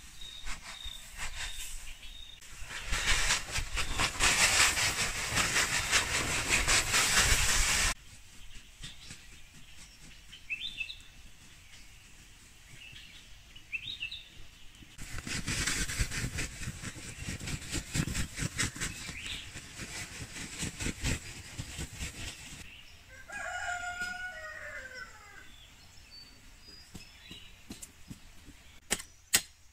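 Dry loose material poured from a woven plastic sack onto garden soil, a rushing hiss in two long stretches. Between them a rooster crows once, and near the end a hoe strikes the soil in quick, sharp knocks.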